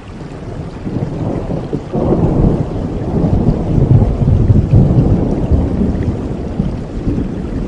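Thunder rumbling low over steady rain. The rumble builds about a second in, swells sharply a second later, is loudest around the middle and eases off toward the end.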